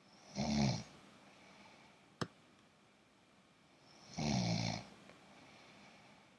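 A man snoring, two snores about three and a half seconds apart, each a rough buzzing breath of under a second. A single sharp click comes between them.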